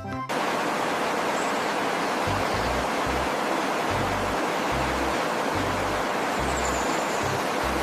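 A steady, even rushing hiss that starts just after the beginning and holds at one level, over background music whose low bass notes come and go.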